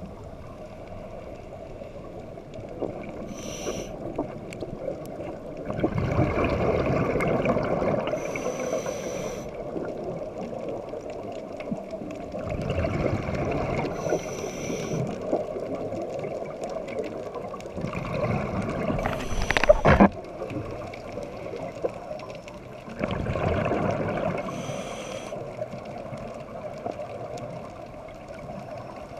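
Underwater scuba breathing through a regulator: a short hiss on each inhalation, then a longer gurgling rush of exhaust bubbles on each exhalation, repeating about every five seconds. One louder crackling burst of bubbles cuts off sharply about two-thirds of the way through.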